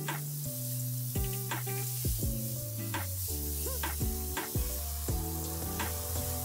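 Background music with held bass notes and a light beat of about two clicks a second, over a steady hiss.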